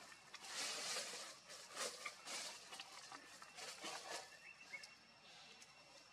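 Outdoor ambience: irregular rustling noises that fade about four seconds in, leaving a faint steady high whine.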